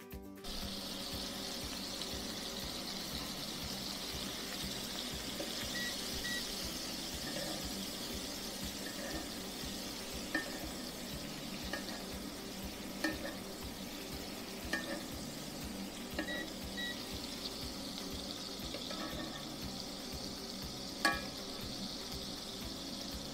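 Filet mignon steaks sizzling steadily in butter and olive oil in a cast iron skillet, with occasional small clicks and scrapes of a metal spoon against the pan as the hot butter is spooned over them.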